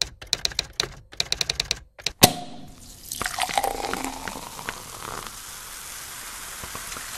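Logo-animation sound effects: two quick runs of typewriter-style key clicks, then a single sharp hit just after two seconds, followed by a steady hiss with scattered faint clicks.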